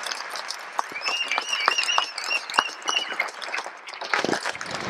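Audience applause: many hands clapping, thinning out near the end. A high, wavering cheer rises over the clapping about a second in and lasts about two seconds.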